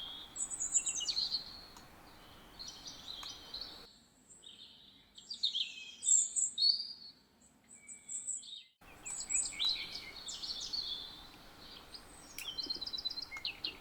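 Recorded birdsong: several small birds chirping and trilling in short high calls over a light background hiss. About four seconds in, the hiss drops away as a cleaner birdsong recording is spliced in, and it returns about nine seconds in.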